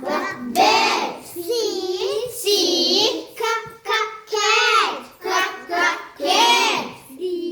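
A child chanting alphabet letters and their sounds in a high sing-song voice, one short phrase about every second.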